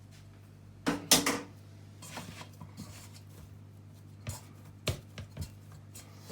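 A cluster of sharp knocks about a second in, then soft scraping and a few single clicks, as soda bread dough is mixed in a mixing bowl, over a low steady hum.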